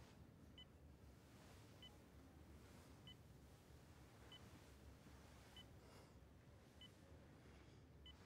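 Faint, short electronic beeps from a hospital bedside patient monitor, one about every second and a quarter, over a low, quiet room hum.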